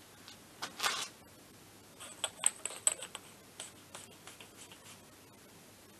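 Steel sockets being handled and clinking together, light metallic clicks with a brief high ring about two to three seconds in.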